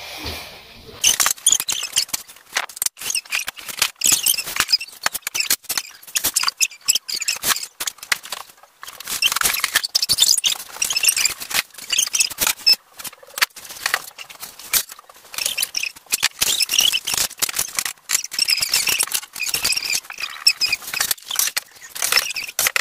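Close, dense rustling and crackling as things are handled right by the microphone, coming in several stretches.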